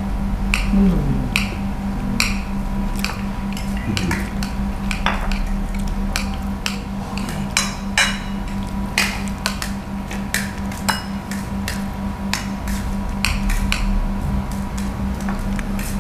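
Metal spoons clinking and scraping on steel plates as people eat, irregular clinks throughout over a steady low hum.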